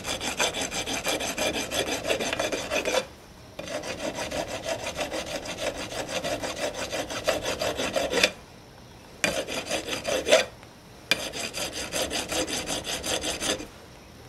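Flat hand file stroked quickly back and forth across the ground-down body of an aluminium full roller rocker arm, in several runs broken by short pauses, stopping near the end. The filing smooths out the grinding scratches left where the rocker was relieved to clear the stud.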